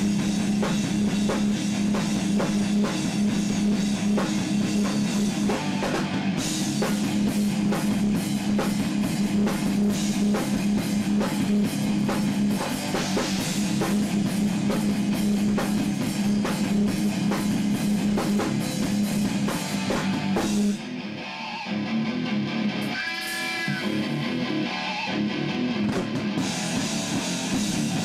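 Rock band playing an instrumental passage on electric guitars, bass guitar and drum kit. About three quarters of the way through, the drums and cymbals drop out and the level falls for a few seconds, leaving only ringing guitar notes. Then the full band crashes back in near the end.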